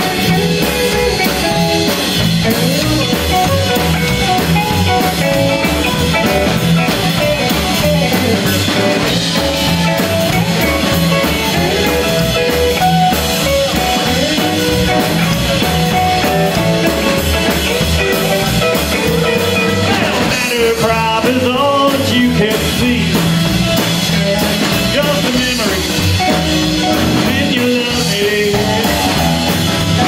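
Live rock-and-roll band playing: upright bass, electric guitar and drum kit, with a steady beat.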